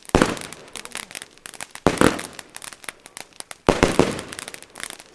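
Tropik Exploder 10 firework battery firing its shots: three loud bangs about two seconds apart, with rapid crackling between them.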